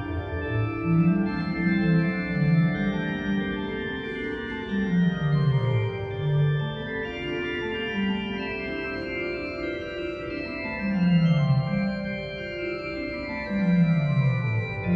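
Juget-Sinclair continuo organ's pipes playing: held upper notes over a bass line that repeatedly runs down in quick scales.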